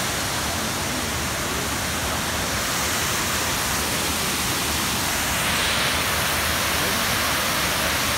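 Tiered waterfall, white water cascading over stepped rock ledges in a steady, unbroken rush.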